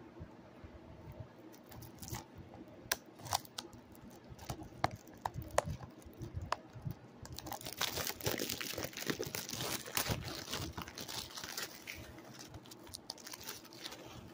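Plastic shrink-wrap being torn and crinkled off a disc case: scattered sharp clicks and rustles, then a dense stretch of crackling crinkle about halfway through that lasts some three seconds.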